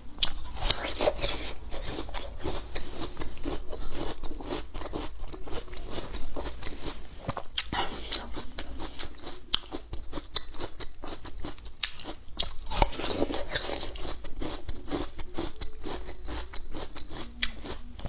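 A person biting and chewing raw yacón, a crisp, very watery root: steady wet crunching, with a few sharper crunches from fresh bites.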